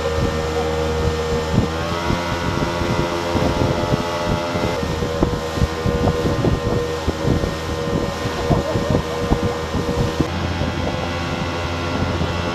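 Outboard motor running at speed on a boat under way, its pitch rising briefly about a second and a half in, with wind buffeting the microphone and water rushing past the hull.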